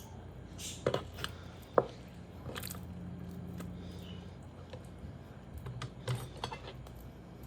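Knife working through a raw whole chicken on a cutting board: scattered sharp knocks and clicks, the loudest nearly two seconds in, with soft squishing and scraping between them, over a faint low hum.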